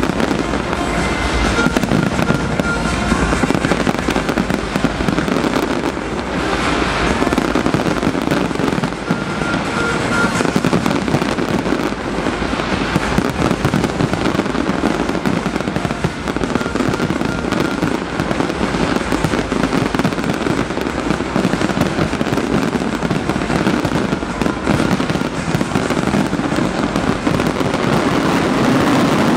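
A dense, continuous barrage of fireworks: bangs and crackling overlapping without a break.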